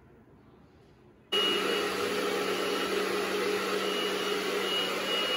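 Portable carpet spot cleaner running, its hose tool suctioning a puppy's accident out of a rug. It is a steady whirring hum with a high whine, and it starts abruptly about a second in after quiet room tone.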